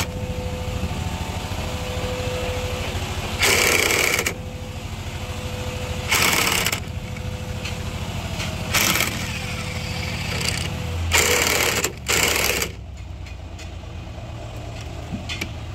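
Electric drill running under load, driving long screws into a wooden cabin post and drawing the post in tight. A low motor hum runs throughout, with several short, loud, harsh bursts.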